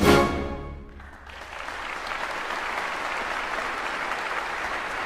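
Instrumental background music that ends about a second in, followed by a steady, even hiss.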